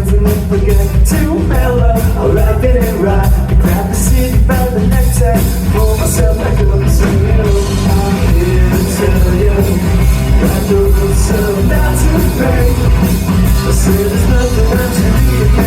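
A live rock band playing loud and steady, with drums and a singing voice over the music.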